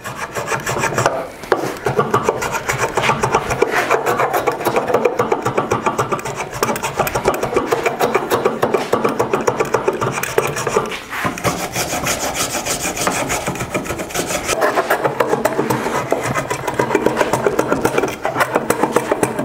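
Bench plane shaving the edges of an oak tenon in quick back-and-forth strokes, a continuous rasping of the iron cutting a bevel along the end grain and edges, with a short pause about halfway through.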